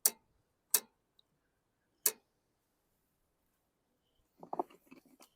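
Three sharp clicks, the second under a second after the first and the third about a second and a half later, from tools and mower parts being handled, followed near the end by faint rattling and shuffling.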